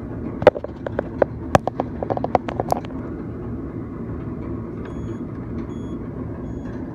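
A quick run of about ten sharp clicks and taps over a little more than two seconds, over a steady low rumble of background noise.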